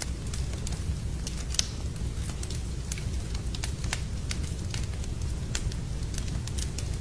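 Fire burning in a fireplace: irregular sharp crackles and pops over a steady low rumble, the loudest pop about one and a half seconds in.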